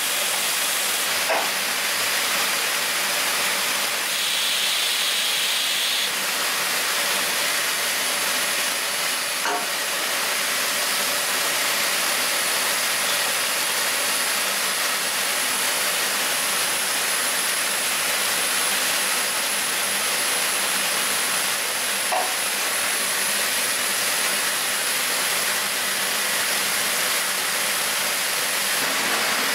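Custom rotary indexing parts washer running: a steady hiss of its spray and air, with a thin high tone over it and a few faint clicks.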